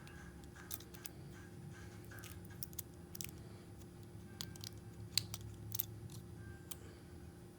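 Faint, scattered small clicks and taps of tools and parts being handled while an LG smartphone is taken apart, over a steady low hum.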